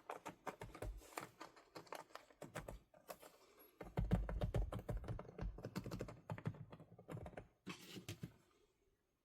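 Fast typing on a keyboard fitted with a key-skin cover, a dense run of keystrokes. From about four seconds in the strokes are heavier and deeper, and the typing stops about a second before the end.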